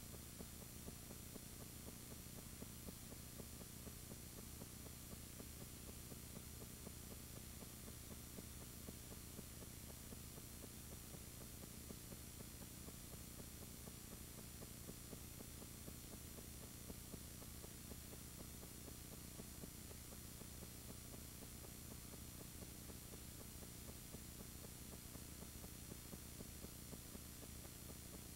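Near silence: a faint, steady hiss with a low electrical hum and no other sound, typical of a silent home movie's transfer with no recorded soundtrack.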